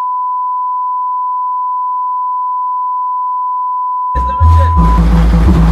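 A steady single-pitch beep holds for about four seconds, then a car audio system cuts in loud, playing music with heavy, deep bass that steps between notes.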